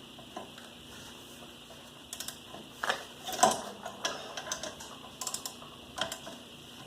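Scattered metal clicks and clinks of a socket wrench being worked onto a bolt, with the socket not seating snugly.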